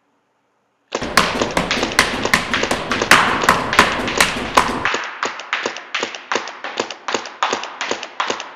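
Planet Eclipse EMF100 magfed paintball marker firing round paintballs in a steady string of shots, about three to four a second, starting about a second in and keeping on to the end.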